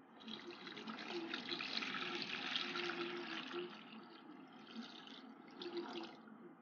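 Water poured from a plastic tub into a bowl, splashing over a small submersible pump. The pour is strongest for the first three and a half seconds, then eases and stops shortly before the end.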